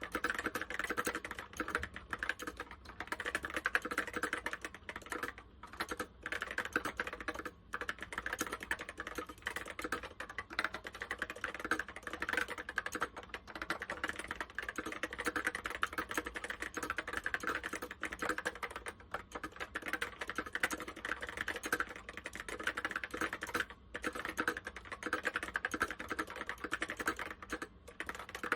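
Fast typing on an Apple M0110 keyboard with Alps SKCC Tall Cream switches: a rapid, steady stream of keystrokes with a few short pauses.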